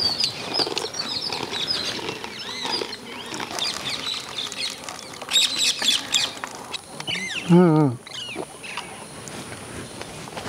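Small birds chirping, many short high chirps one after another, thickest about five and a half seconds in. About seven and a half seconds in, a single call slides sharply down in pitch.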